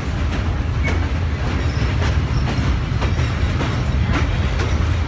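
Passenger train rolling along the track: a steady heavy rumble with the wheels clacking over rail joints, a sharp click about every half second to a second.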